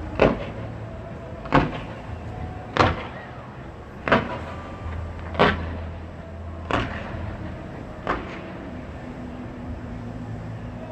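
Fireworks shells bursting in a regular series: seven sharp bangs about one and a third seconds apart, over a steady low background noise.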